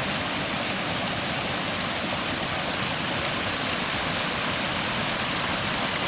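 Small natural waterfall of the Kleine Steinerne Renne pouring over rocks: a steady rush of falling water.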